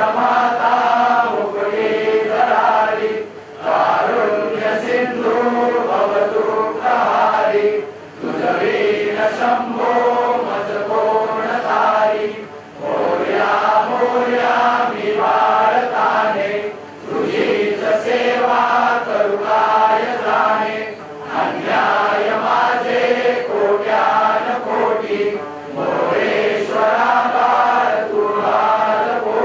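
Many voices singing a Hindu devotional aarti together in unison, in sung phrases of about four seconds with a short break between each.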